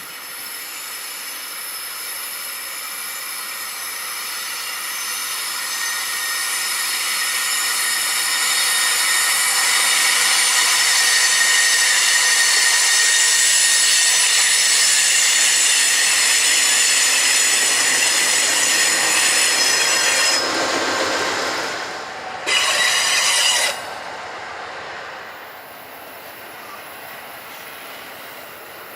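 Amtrak California Zephyr passenger train passing, its wheels squealing in several high-pitched tones over rumbling rail noise, growing louder for about ten seconds. The sound changes abruptly twice near the end, with a short loud burst, then falls to a quieter rumble.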